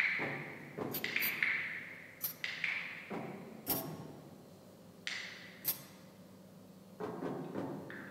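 Improvised percussion: irregular sharp strikes on hard objects, some single and some in quick clusters, several leaving a high ringing tone that fades away.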